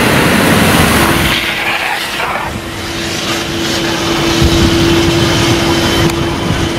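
Vehicles driving through deep floodwater on a road, water sloshing and spraying around the wheels over engine noise. A steady humming drone sets in about a second in.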